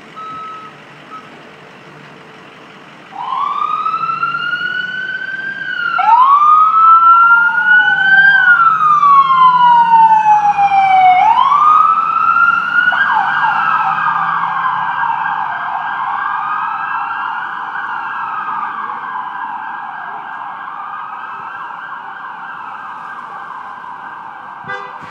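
Reversing beeps for the first second. Then an FDNY EMS vehicle's electronic siren starts about three seconds in with slow rising and falling wails, and switches to a fast yelp around halfway. The siren fades slowly as the vehicle pulls away.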